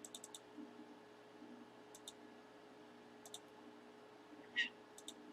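Light, sharp clicks in small groups of two to four, with one louder short rustle about four and a half seconds in, over a faint steady hum.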